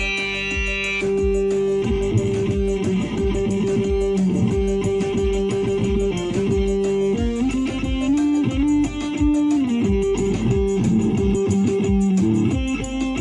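Electric guitar music: long held notes that step and slide up and down in pitch, over a steady low pulse.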